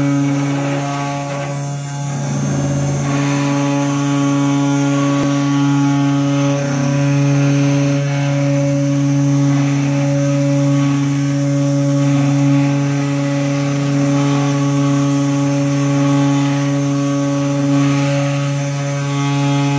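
Desktop CNC router's spindle motor running with a steady hum while its bit mills a wooden tube, with the rasp of the cutter in the wood.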